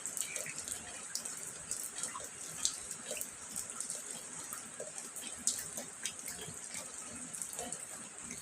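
Steady rain falling, a constant hiss with many separate drops ticking and splashing irregularly through it.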